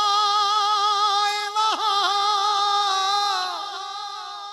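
A man singing a naat solo into a microphone, holding a long high note with a slight vibrato; the line breaks briefly about one and a half seconds in, and a second drawn-out note fades near the end.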